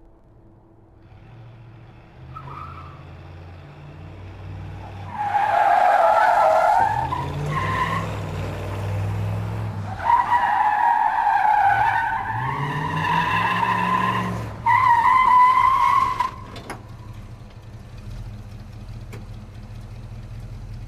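Car engine revving while its tyres squeal in three long skids, about five, ten and fifteen seconds in; the last squeal cuts off sharply. Afterwards the engine runs on at a low, steady note.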